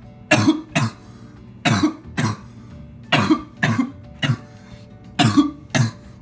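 A young man coughing hard from bong smoke: about nine coughs in short fits of two or three.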